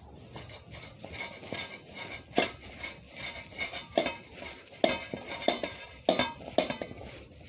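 A spoon clinking and scraping against a bowl as chicken pieces are stirred through a thick spice marinade, with irregular knocks.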